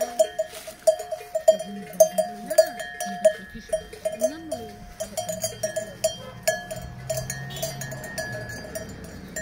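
Cowbell on a grazing cow clanking irregularly, a few strikes a second, as the animal moves its head while feeding.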